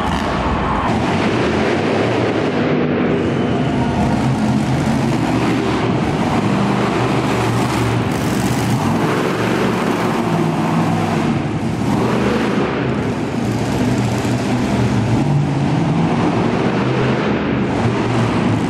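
Monster truck engines running hard and revving, the sound swelling and easing again several times as the trucks drive and jump.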